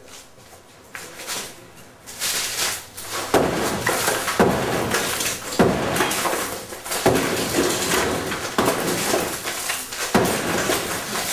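A brick wall being struck hard during demolition: about six heavy blows, roughly a second and a half apart, beginning about three seconds in, with noisy rubble sounds between them.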